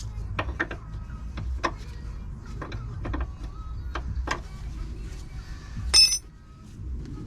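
Metal spanners clinking and tapping in short irregular knocks while a brake line fitting is worked on. About six seconds in, a louder metallic clank rings briefly.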